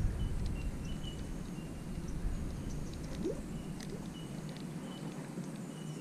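Quiet outdoor ambience with a few faint, short, high-pitched chirps and a brief rising note about three seconds in.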